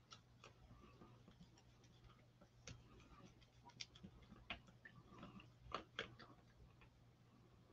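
Faint, irregular clicks and scrapes of a plastic stir stick mixing ink in a small plastic cup, the sharpest few a little after halfway, over a low steady hum.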